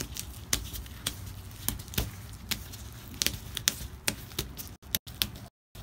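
Plastic masking sheet and masking tape crinkling and crackling as they are pulled back and repositioned on the car body, in irregular sharp crackles.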